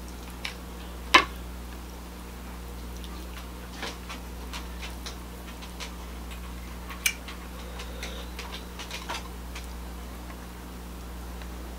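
Scattered clicks and small cracks of king crab shell as the meat is picked out of a knuckle by hand, with chewing close to the microphone. Two sharper snaps come about a second in and about seven seconds in, over a steady low hum.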